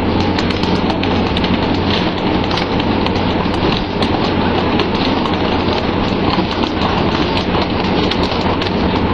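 Steady rain-like hiss of water spray and sea along the boat's side, over a steady low engine hum, with frequent irregular knocks and slaps of fish swung aboard landing and flapping on the deck.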